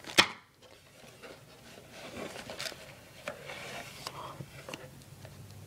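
A sharp knock just after the start, then faint rustling and scraping of a plastic-wrapped item being lifted out of a cardboard box.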